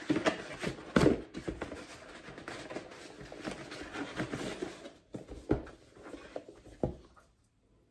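Cardboard mailer being torn open along its pull strip: a few seconds of tearing, rustling and scraping cardboard. Then two separate knocks as a small cardboard box is handled on the table.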